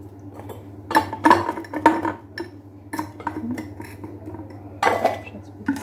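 Frozen lemons and a glass jar being handled on a kitchen counter: a few separate knocks and clinks of lemons against glass, the loudest in the first two seconds and another near the end.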